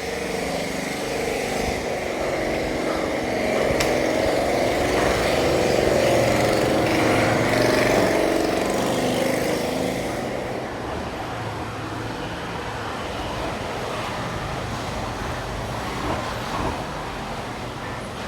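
Road traffic running by, one vehicle passing louder from about three to ten seconds in before the traffic settles back to a steady level.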